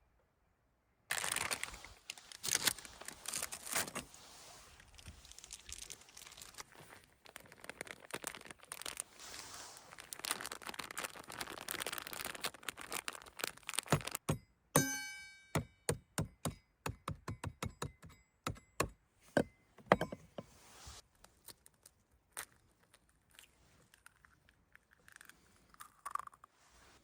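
Objects being handled: clattering knocks and crinkling, then a quick run of sharp clicks about halfway through that thins out to occasional taps.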